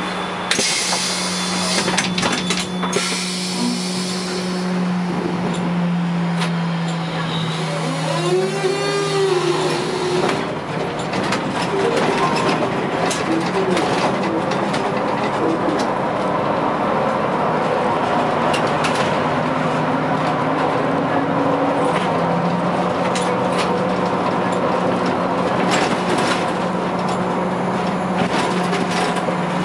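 Škoda 15TrM trolleybus heard from inside the cab while driving, with a steady electric hum over road and tyre noise. About eight seconds in, a brief whine rises and falls in pitch.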